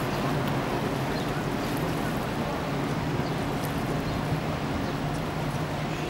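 A large container ship passing close by: its engines give a steady low drone over a constant rushing wash of wind and water noise.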